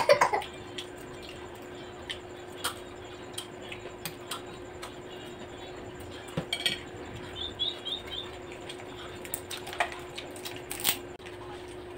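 Scattered light clinks and taps of a spoon and fork on ceramic plates during a meal, with a sharper clink near the end, over a steady low hum.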